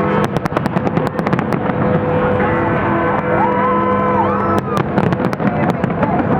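Fireworks going off in rapid volleys of sharp cracks, a dense run in the first second and a half and another cluster about five seconds in, over steady music.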